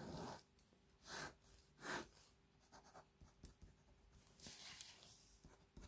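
Faint scratching of a pen on paper as a circle and axes are drawn: a series of separate strokes and short ticks.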